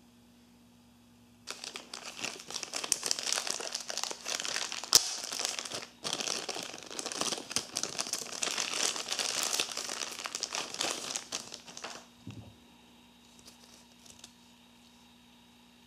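Thin clear plastic bag crinkling as a camera strap is unwrapped from it: about ten seconds of dense crackling with one sharp snap about five seconds in, ending in a soft thump.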